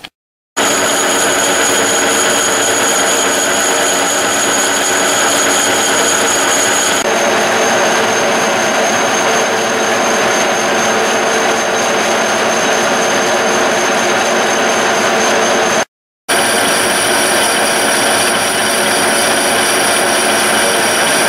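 Metal lathe running, turning down a cast iron sleeve: a loud, steady mechanical sound with several fixed high tones, broken off for a moment twice.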